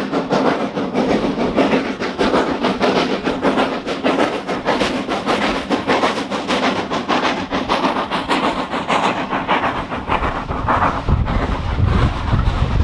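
Train on a heritage steam railway running close by: a rapid, even clatter of several beats a second, with a deeper rumble building near the end.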